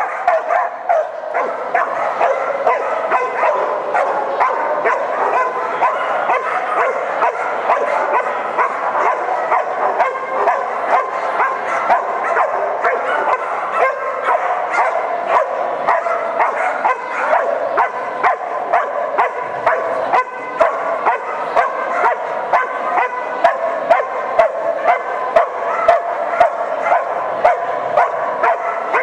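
Dog barking rapidly and without a break, a steady stream of short barks and yips.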